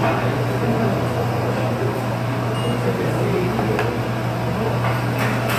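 Restaurant room noise: a steady low machine hum under faint background voices, with a few light clicks near the end.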